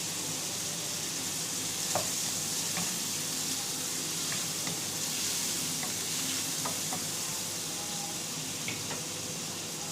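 Prawns and sliced squid sizzling in hot oil in a wok over high heat, a steady frying hiss with a few light clicks of the utensil against the pan.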